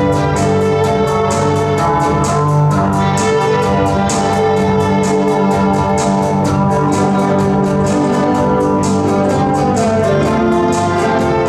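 A live ensemble of acoustic and electric guitars with violins, violas, cellos, bass and drums playing an upbeat rock arrangement with sustained chords over a steady beat.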